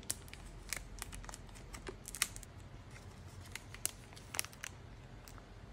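Thin clear plastic bag crinkling in faint, irregular crackles as hands handle it around a baked hot dog bun and tie it shut.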